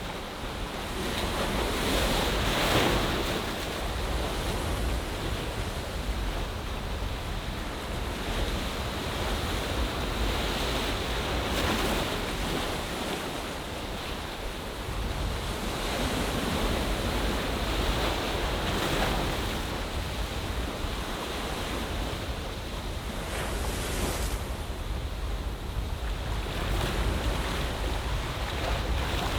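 Waves washing in an ocean bay, the surf swelling and easing every few seconds, with a low wind rumble on the microphone underneath.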